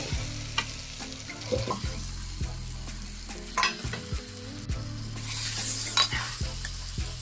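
Onion-tomato masala sizzling in a kadai as raw chicken pieces are stirred into it with a perforated metal ladle. The ladle clicks and scrapes against the pan over and over, above a low steady hum, and the sizzle swells about five seconds in.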